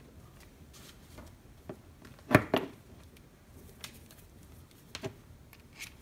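Handling noise on a wooden desk: a few light clicks and ticks as test leads and the relay are moved about, with one loud sharp knock a little over two seconds in.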